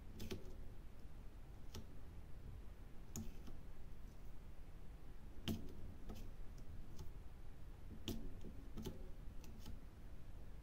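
Diamond-painting drill pen tapping resin drills into a plastic tray and pressing them onto the adhesive canvas: about seven short, sharp clicks spaced irregularly a second or more apart, over a low steady background.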